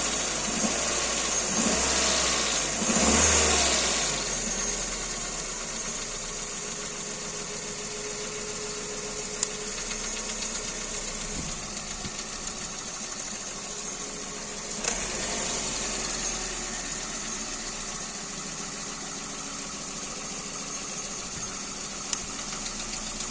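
Kia Rio second generation's G4EE 1.4-litre four-cylinder petrol engine, revved briefly a couple of times at the start and then idling steadily, with the engine knock that the owner is recording. A few single sharp clicks sound over the idle.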